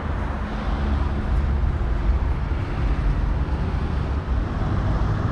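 Street ambience: steady road traffic noise with a deep rumble, no single event standing out.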